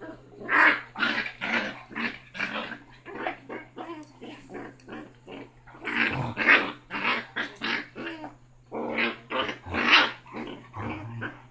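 Basset hound puppy growling and yapping in a rapid string of short bursts, two to three a second, with louder flurries about half a second in, around six seconds and near ten seconds.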